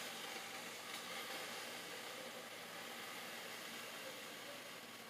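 Swedish pancake batter sizzling faintly in a hot frying pan, an even steady hiss that eases off slightly toward the end.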